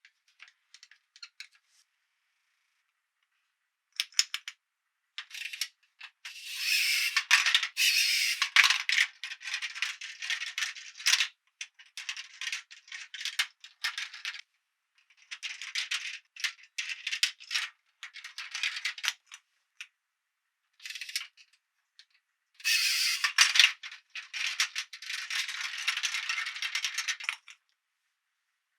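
Small hard plastic toy pieces rattling and clattering as they are handled, in several runs of dense clicking with short pauses between.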